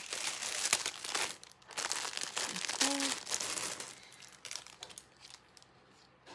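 Plastic packaging crinkling and rustling as a necklace is unwrapped, dense for the first four seconds or so, then dying down to a few light clicks.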